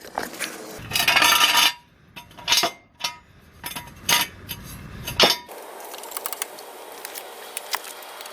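Loose steel parts handled and set down: a scraping rush about a second in, then several sharp metallic clanks and clinks, stopping about five and a half seconds in.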